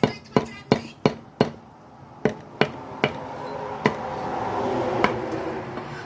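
Chopping on a cutting board: a quick run of sharp knocks, about three a second, that slows and thins to single strokes after about a second and a half. A steady noise grows underneath in the second half.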